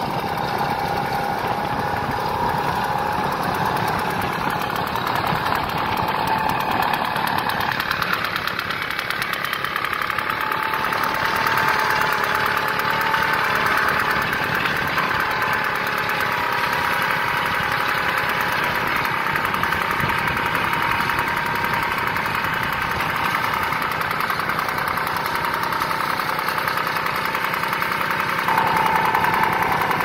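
Simar two-wheeled garden tractor's engine running steadily under load as it pulls a plough through the soil.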